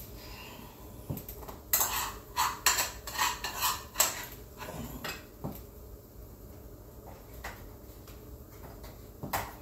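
A plate and cutlery being handled and clattering: a quick run of clinks and knocks for about two and a half seconds, then a few scattered knocks and one more near the end.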